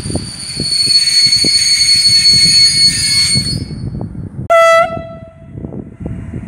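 EN57FPS electric multiple unit pulling out of the station: a high, steady whine for about three and a half seconds, then one short horn blast about four and a half seconds in, the loudest sound, over the low rumble of the moving train.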